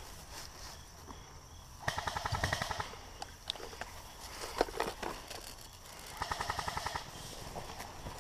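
Airsoft guns firing in two rapid full-auto bursts, each about a second long, with a single sharp crack between them.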